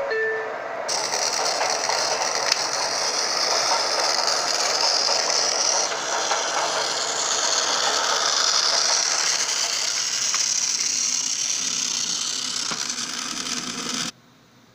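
The last notes of a two-tone descending door chime, then a battery-powered toy train's motor and gears whirring steadily as the car pulls away along plastic track. The whir cuts off suddenly near the end.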